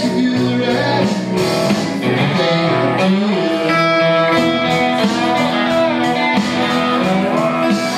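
Blues-rock instrumental passage: a resonator guitar played over a backing band track, with some notes bending in pitch around the middle.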